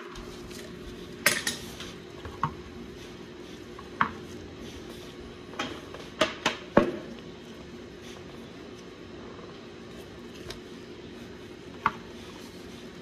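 Sharp metal clinks and clanks of tools and the steel oil filter canister being handled. Several come over the first seven seconds and one more comes near the end, over a steady low hum.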